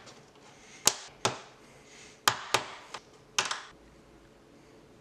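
Ball bearings being pressed and knocked into 3D-printed plastic parts: about six sharp clicks and knocks at uneven spacing, with a quick little cluster about three and a half seconds in.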